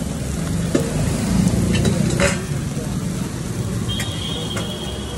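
A steel spatula scraping and mashing paneer and spinach filling across a hot flat griddle, with the dosa sizzling underneath. There are a few sharper scrapes of metal on the griddle.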